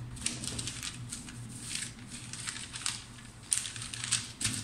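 Paper pattern pieces and cut fabric rustling and crinkling as they are shifted and lifted on a table, in a string of short rustles, a cluster of them near the end.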